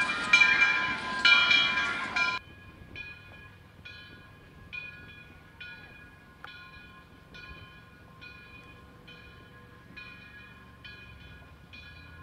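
Steam locomotive's bell ringing in a steady rhythm, loud at first over the noise of the running train. About two seconds in it drops suddenly and goes on fainter, at about two strokes a second.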